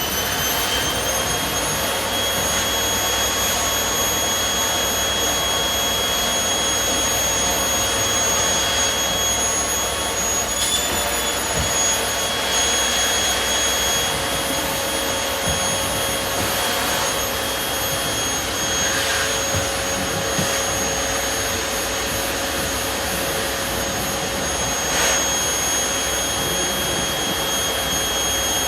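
Vacuum cleaner running steadily at full speed: a high motor whine over the rush of air. The pitch lifts briefly about eleven seconds in.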